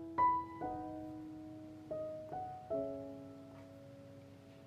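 Slow background piano music. Single notes and small chords are struck a few at a time, each ringing out and fading.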